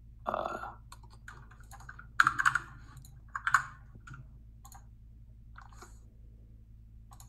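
Computer keyboard typing and clicks in short irregular clusters, the loudest a quick run of keystrokes a little over two seconds in and another about a second later.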